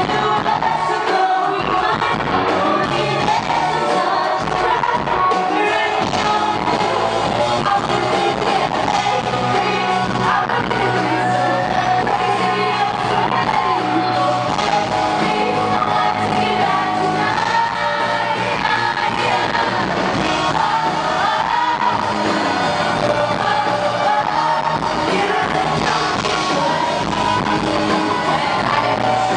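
Live pop-rock band playing steadily and loudly, with electric guitars, drums and sung vocals, heard from the audience in a large theatre.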